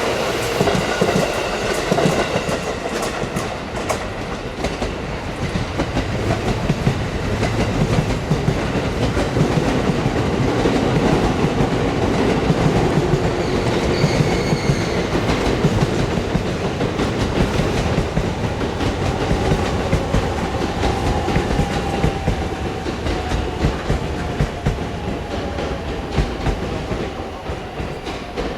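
Train running along the track, its wheels clicking steadily over the rail joints, the sound easing off in the last few seconds.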